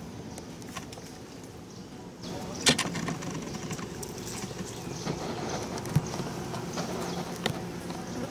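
Outdoor background noise with a few sharp clicks, the loudest a little under three seconds in; the background gets louder a little after two seconds.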